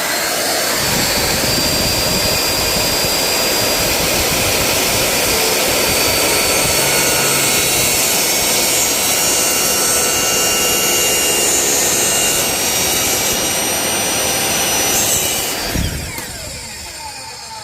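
Power miter saw running loud and steady as its blade cuts a clamped acrylic sheet. Near the end the saw is switched off and the blade winds down, its whine falling in pitch.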